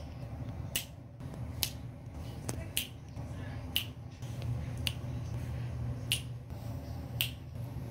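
Sharp clicks of thin empty plastic water bottles being handled and pressed, roughly one a second, over a low steady hum.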